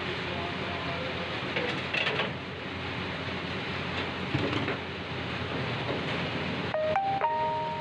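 Noodles frying in a wok over a gas burner: a steady sizzle with the burner's roar under it, and the metal ladle scraping and tossing the noodles. Near the end, two sharp metal clangs leave a ringing tone.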